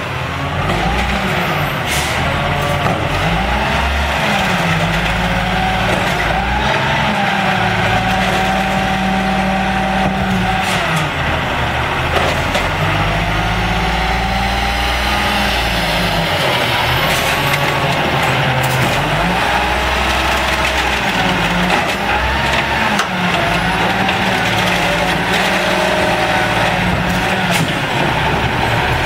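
Automated side-loader garbage truck's diesel engine, revving up and dropping back again and again as it drives the hydraulic lifting arm, with a few short air-brake hisses.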